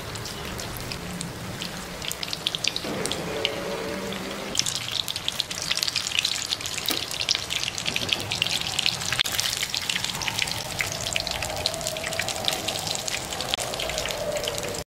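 Breaded vegetable rissoles deep-frying in hot oil in a pan: steady sizzling with dense crackling and popping, which grows thicker about four to five seconds in.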